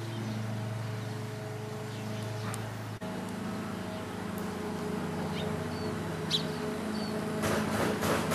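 Steady low mechanical hum of a running motor, with a few short high bird chirps in the second half and a brief rush of noise near the end.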